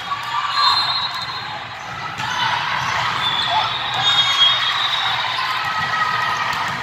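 Indoor volleyball rally: the ball is struck and players' shoes squeak in short high chirps on the court. Voices of players and spectators ring out in the echoing gym.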